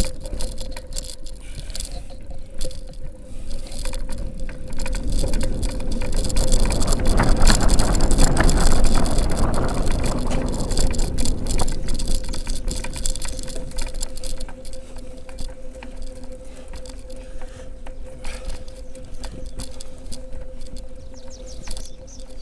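A vehicle passing by: a rumble that swells to its loudest about eight seconds in and fades away, over a steady hum, with many sharp clicks and knocks.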